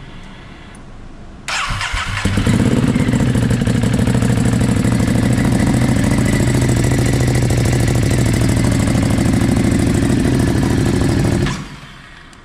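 Ducati Hypermotard SP's L-twin engine, fitted with an Austin Racing exhaust, cranked over on the electric starter about a second and a half in. It catches within a second and runs loud and steady at idle, then is switched off shortly before the end.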